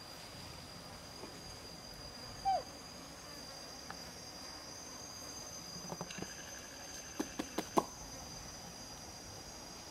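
A steady high-pitched drone of forest insects. A short falling squeak comes about two and a half seconds in, and a few sharp clicks in the second half.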